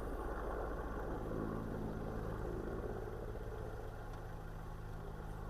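A vehicle engine idling steadily, its hum firming up about a second in.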